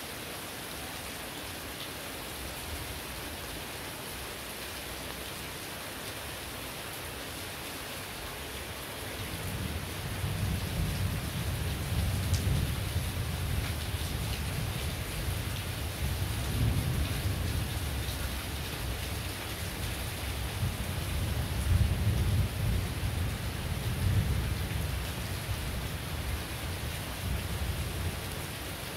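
Heavy rain falling steadily. About nine seconds in, a long low rumble of thunder rolls in, swelling and easing several times.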